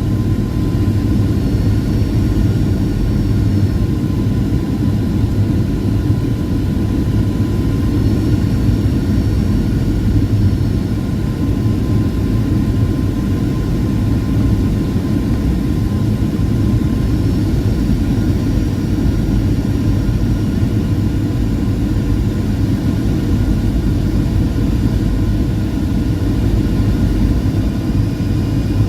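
Steady jet airliner cabin noise on approach: a loud, even rumble of engines and airflow heard from inside the cabin, with a faint steady whine above it.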